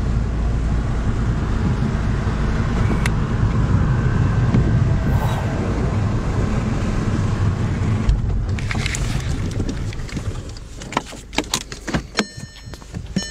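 Car road noise heard inside the cabin: a steady low rumble with a hiss over it. It fades about ten seconds in and gives way to scattered clicks and knocks.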